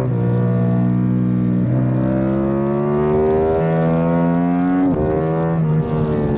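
Yamaha YZF-R7's parallel-twin engine heard from on board under hard acceleration, revs climbing and dropping sharply at each upshift: twice in the first two seconds, then a long climb and another shift about five seconds in.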